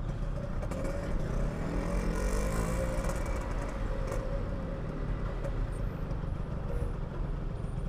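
Yamaha RX-King two-stroke motorcycle engine running on the move through a PK3 aftermarket exhaust, rising in pitch about a second and a half in as the throttle opens, then holding steady, over road and traffic noise.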